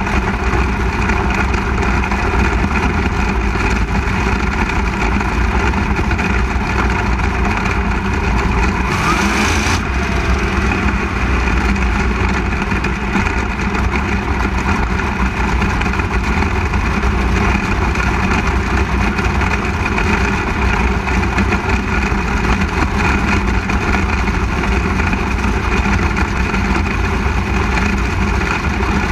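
360 sprint car's V8 engine heard onboard, running at a steady, even speed on a dirt oval, with other sprint cars close by. About nine seconds in there is a brief rushing hiss.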